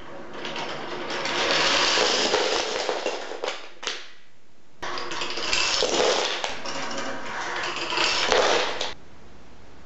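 Wooden toy trains rattling as their wheels roll down wooden track, in two runs. The first stops with a click about four seconds in; after a second's quiet the second starts and stops abruptly about nine seconds in.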